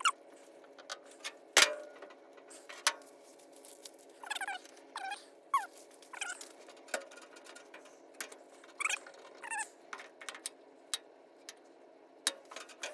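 A cat meows briefly several times. Sharp metal clicks and one loud knock about a second and a half in come from locking pliers being clamped onto a bolt in the steel door of a VW bus.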